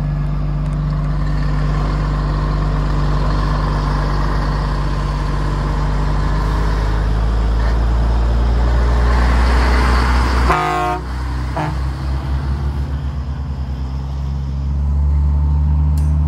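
Volvo FH 380 truck's diesel engine running steadily, heard from inside the cab while driving. A short truck horn toot sounds about ten seconds in. The engine then eases off briefly and builds up again near the end.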